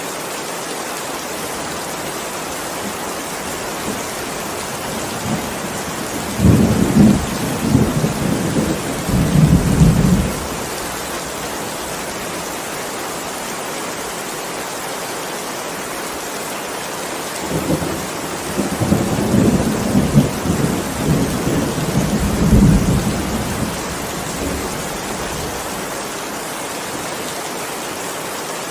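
Steady heavy rain with two rolls of thunder rumbling low through it. The first comes about six seconds in and lasts some four seconds; the second starts a little after seventeen seconds and lasts about six.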